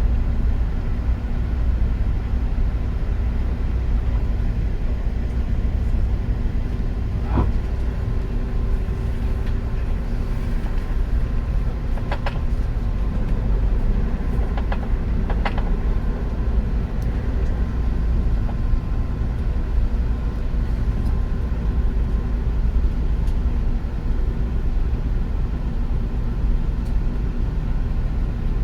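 Train running steadily, a continuous low rumble with a few faint steady tones. A few brief clicks and a short squeal come through around the middle.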